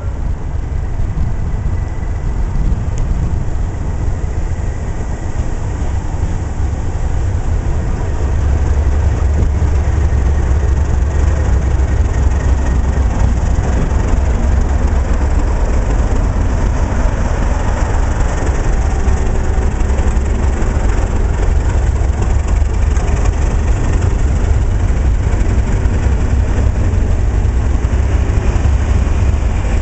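Class 37 diesel-electric locomotive's English Electric V12 engine running with a deep, steady rumble as the test train draws alongside and passes close, with train noise over it. The rumble grows louder about eight seconds in and then stays loud.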